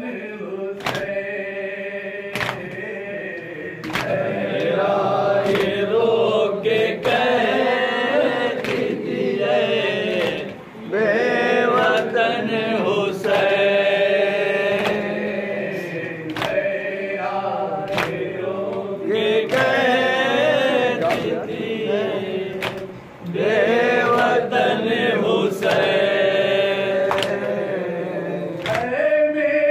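Men and boys chanting a noha, a Muharram lament, together with a lead reciter on a microphone, with sharp slaps of hands beating on chests (matam) about every second and a half.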